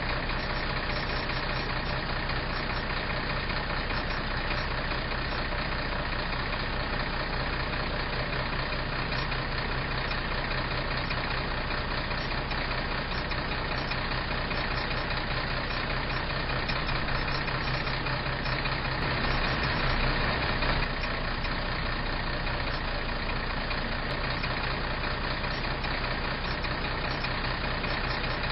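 Tractor-trailer's diesel engine idling steadily, swelling slightly about two-thirds of the way through.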